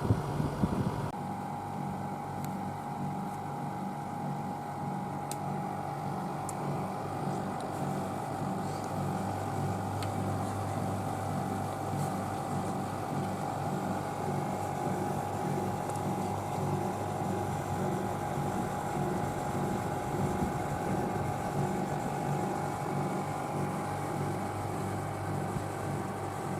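Haier window air conditioner running: a steady low hum with a thin, even whine above it. There is a louder low rush in the first second.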